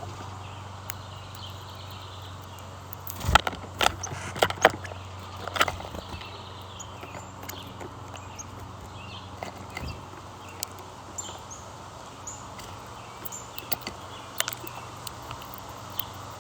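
Small birds chirping with short, high calls throughout. A cluster of loud, sharp knocks or taps comes about three to six seconds in, with a few fainter ones later, over a steady low hum.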